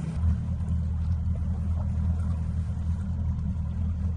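Boat engine idling in neutral, a steady low rumble.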